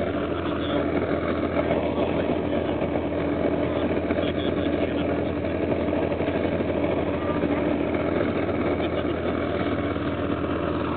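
Snowcat engine running in a steady drone while the machine climbs a snowy slope, heard from inside the passenger cabin.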